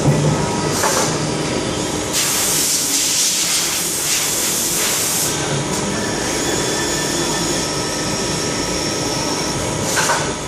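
DMG CTX 310 ecoline CNC lathe running a turning job, a steady machine noise with a thin, steady whine. A loud hiss comes in about two seconds in and stops about three seconds later.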